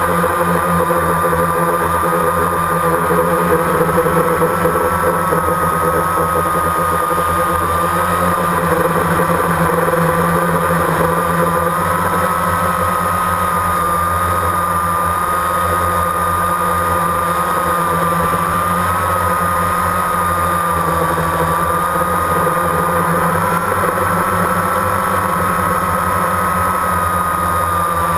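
Drone's motors and propellers heard from the onboard camera: a steady whine that wavers slightly in pitch, over a low hum.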